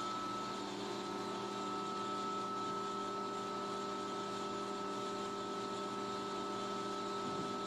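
Motor-alternator frequency-converter set running under full load: a steady electrical hum made of several constant tones, with a fainter high whine above it.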